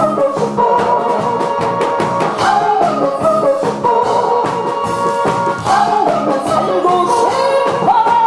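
A woman singing into a microphone over an instrumental accompaniment with a steady drum beat.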